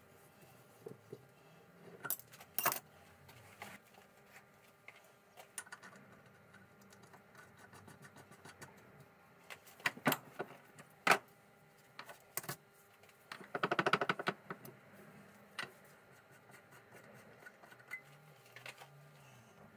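Metal parts and hand tools clinking and knocking against a steel bench vice while a small steel bolt with a ball-knobbed lever is handled and clamped in its jaws: scattered sharp metallic clicks, the loudest two a little after ten seconds in, and a brief fast rattle about fourteen seconds in.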